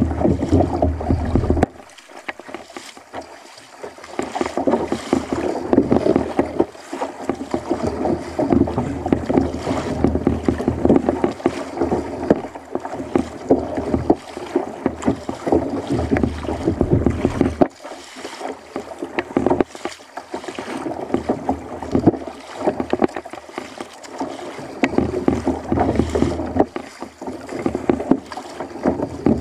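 Double-bladed kayak paddle dipping and splashing stroke after stroke, with water washing against the hull of a sit-on-top fishing kayak. Wind rumbles on the microphone at times, most strongly at the start.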